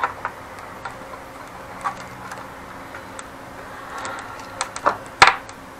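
Light clicks and taps of a cable and its small lamp fittings being handled on a tabletop, scattered about once a second, with a sharper click near the end, over a faint steady hum.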